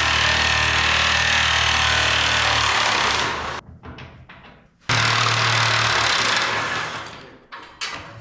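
Impact wrench hammering on frame bolts in two long runs of about three seconds each, with a short pause between, breaking the bolts loose.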